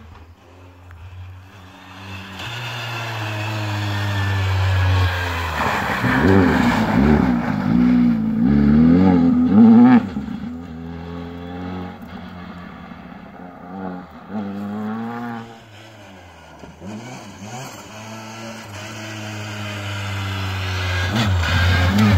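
Skoda Fabia R5 rally car's 1.6-litre turbocharged four-cylinder engine revving hard, its pitch rising and falling through throttle lifts and gear changes as the car is driven through snowy bends. It grows loudest about ten seconds in, drops away, then builds again as the car comes close near the end.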